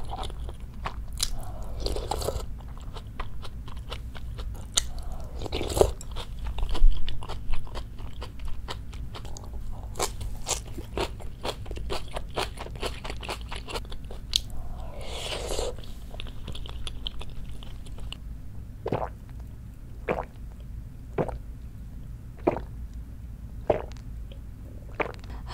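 Close-miked mouth sounds of a person eating spicy chicken and beef-tripe stew: wet chewing and biting, many small sharp clicks, with two longer slurping sounds, about two seconds in and about fifteen seconds in.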